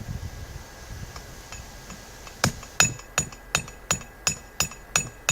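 Hammer striking a 66 lb (30 kg) steel anvil in an even run of about three ringing metallic blows a second, starting about halfway through.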